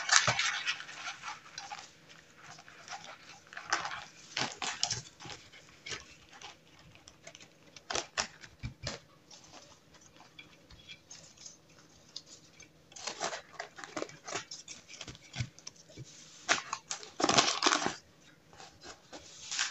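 Baking paper crinkling and rustling as a sheet of puff pastry on its paper is handled and pressed into a metal tart tin. It comes in irregular bursts with quiet gaps, the longest near the end.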